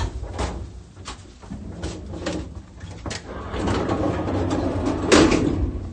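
Handling noise from a handheld phone: scattered clicks, knocks and rubbing, with one louder thump about five seconds in.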